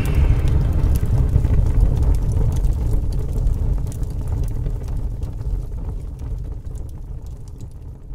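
Deep, low rumble from a cinematic sound effect, fading slowly away, with faint scattered crackles over it.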